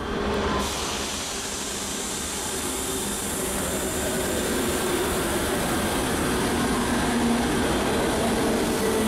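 Cobrasma/Francorail 900-series electric metro train pulling into the station: a steady rush of wheels on rail with a faint whine, slowly getting louder as it approaches.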